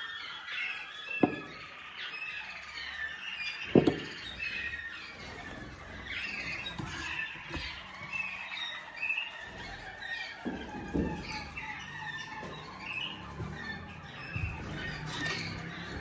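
Many caged canaries chirping, short overlapping calls all the way through, with two sharp knocks about a second in and near four seconds in.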